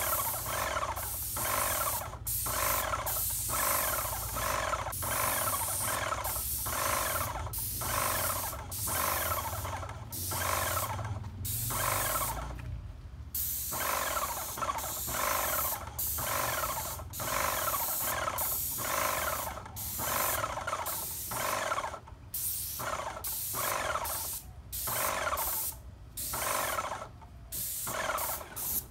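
Graco Magnum X5 airless paint sprayer spraying cedar stain, its spray hissing in repeated short bursts of about half a second to a second, with a steady low hum underneath.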